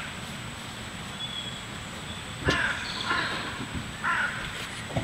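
A crow cawing twice in the second half, harsh calls over a quiet woodland background, with a sharp click just before the first.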